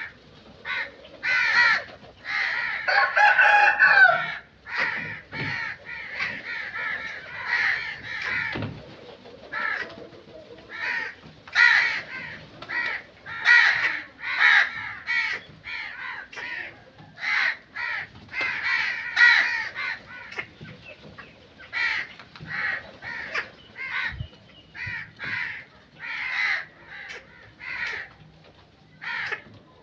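Crows cawing, a run of short harsh calls repeated every second or so, several birds overlapping in a dense burst of calls about two to four seconds in.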